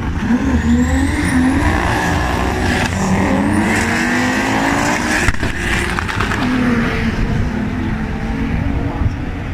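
Two drag-race cars launching from the line and accelerating hard down the strip. Their engine note climbs steeply and drops back at each gear change, several times over, and there is one sharp crack about five seconds in.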